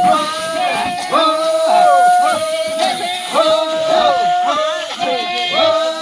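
Several voices singing together in a repeated chant: short phrases each held on one note and ending in a falling slide, overlapping one another about once a second.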